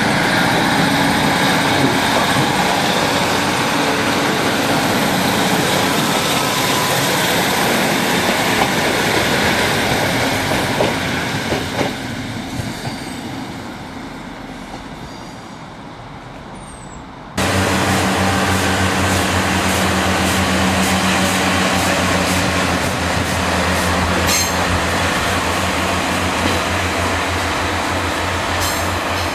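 A Class 150 Sprinter diesel multiple unit runs past, its engine and wheels on the rails loud and then fading away over several seconds. After a sudden cut, another diesel multiple unit runs with a steady low engine hum.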